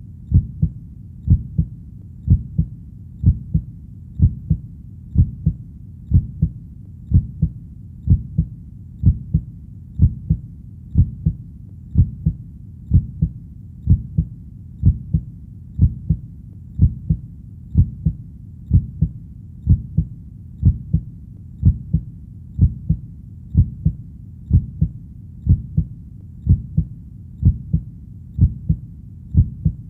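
Heartbeat: a steady, even double thump (lub-dub) at about one beat a second, low and muffled, with faint low background noise between the beats.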